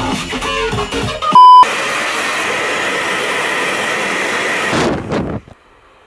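A short, loud electronic beep, then a handheld hair dryer blowing steadily with a faint high whine, fading out about five seconds in.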